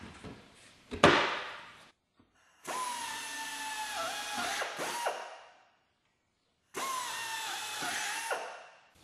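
A plywood side panel knocks into the cart's steel tube frame about a second in. Then a compressed-air power tool runs twice, a few seconds each time, driving the bolts that fasten the panel: a steady whine whose pitch dips as each bolt pulls tight.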